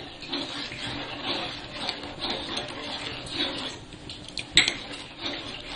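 Spoon stirring a thick peas curry in a pan: uneven scraping and stirring, with one sharp knock of the spoon against the pan about four and a half seconds in.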